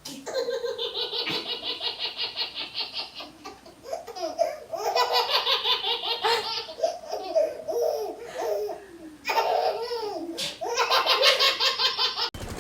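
Laughter in rapid, pulsing bouts, three long fits of it with short breaks between.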